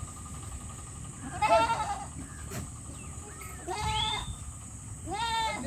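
Goats bleating: three wavering calls about a second apart, the first the loudest.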